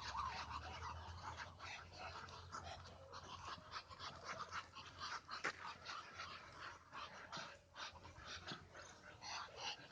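Muscovy duck hissing: a quick, irregular run of short, breathy hisses, several a second.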